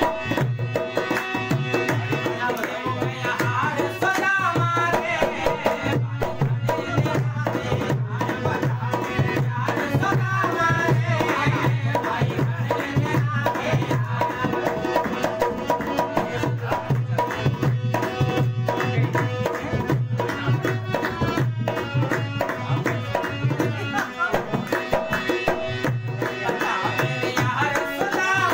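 Harmonium playing a bhajan melody over a steady, hand-played dholak rhythm, with a man singing near the start and the end.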